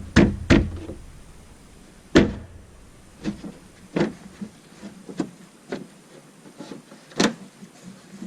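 Irregular knocks and taps on wood, about eight in all, the loudest near the start, about two seconds in and about seven seconds in.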